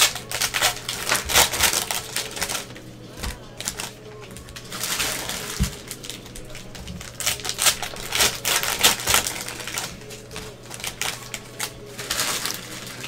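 Plastic trading card pack wrappers crinkling and tearing, with cards being handled in gloved hands: irregular runs of quick crackly rustles and clicks.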